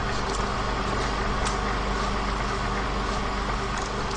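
Film projector running: a steady mechanical whirr over a low hum, with a few faint clicks.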